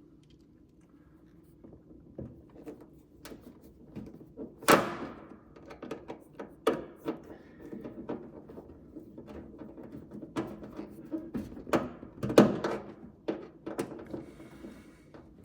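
Irregular knocks, clunks and small clicks of hand work, the loudest about five seconds in and again about twelve seconds in.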